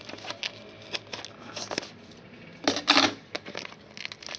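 Scissors clicking and snipping through the plastic shrink-wrap on a trading-card box, with a louder rustling burst about three seconds in.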